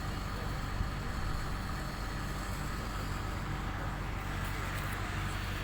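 A vehicle engine running steadily, over an even outdoor rushing noise.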